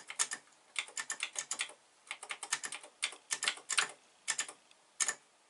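TI-99/4A computer keyboard keys being tapped in quick runs of clicks, several a second, with short pauses between the runs and a single click about five seconds in. The keys are the E/S/D/X cursor keys and the space bar, moving a cursor around a drawing grid and filling in squares.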